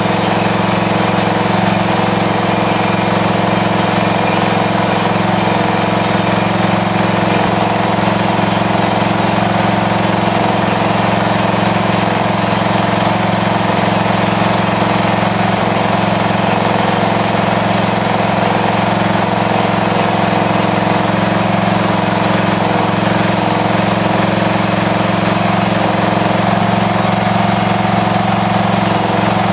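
AL-KO Powerline ride-on mower's petrol engine running steadily after a jump start, its charging system working.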